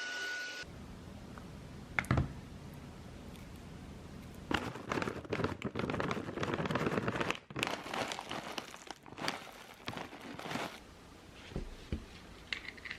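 Crinkling and rustling in irregular bursts, as of material being handled, with a sharp click about two seconds in and a few light ticks near the end.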